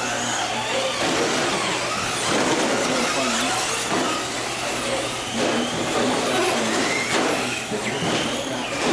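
Several Traxxas Slash electric RC short-course trucks racing on a carpet track: a steady mix of motor and drivetrain noise, with faint motor whines gliding up and down as the throttle changes.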